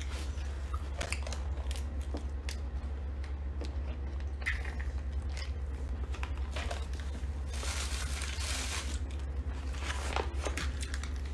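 Clear plastic packet crinkling and rustling as it is handled, with scattered sharp clicks and a longer burst of crinkling a little past halfway, over a steady low hum.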